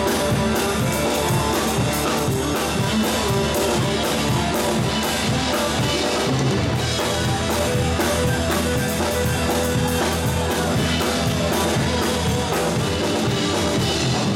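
Live rock band playing an instrumental passage: two electric guitars, electric bass and drum kit, with a steady driving beat.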